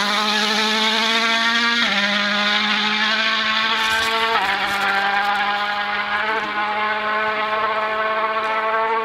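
Ford Fiesta WRC rally car's turbocharged four-cylinder engine under hard acceleration as the car pulls away. The note climbs steadily in each gear, with quick upshifts about two, four and a half and six and a half seconds in.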